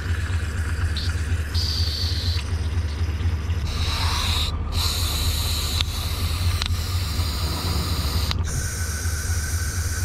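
Aerosol cleaner hissing out through its red extension straw in several bursts of spray, with short breaks between them, over a steady low rumble.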